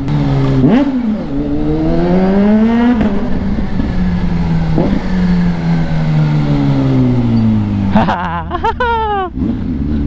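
Kawasaki Z H2's supercharged inline-four through an aftermarket Villain muffler, ridden on the road. The engine note climbs, breaks at a gear change about three seconds in, then falls slowly as the bike rolls off the throttle.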